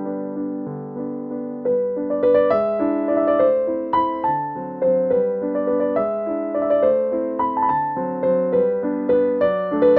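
Background piano music: a melody of struck notes, each fading after it is played.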